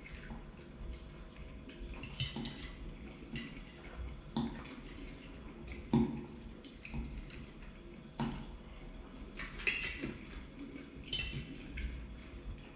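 A metal fork clinking and scraping on a ceramic plate while eating, with wet chewing sounds in between. The sharpest clink comes about six seconds in.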